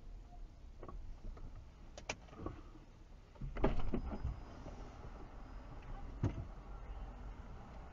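Low rumble of a stopped car heard from inside its cabin, with a few scattered clicks and knocks and a louder cluster of knocks about three and a half seconds in.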